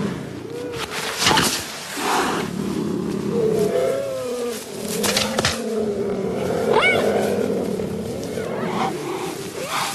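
Cheetahs growling in a continuous low rumble, broken by several sharp hissing spits, with a short rising call about seven seconds in: defensive threat sounds from cats that are frightened and have had enough.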